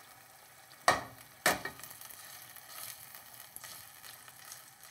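Puréed cannellini beans scraped out of a glass bowl into a pot of simmering soup with a spatula, with two sharp utensil knocks about a second in and half a second later, then stirring over a faint sizzle from the pot.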